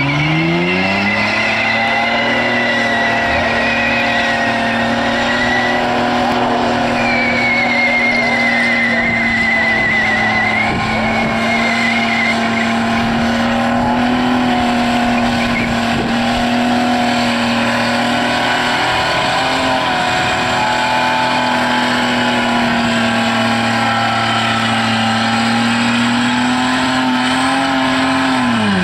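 Holden VS Commodore's 3.8-litre V6 doing a burnout: revs climb in the first second, then are held steady and high, dipping briefly a little past the middle and dropping at the end. Over the first half, wavering tyre squeal sits over the engine as the rear tyres spin and smoke.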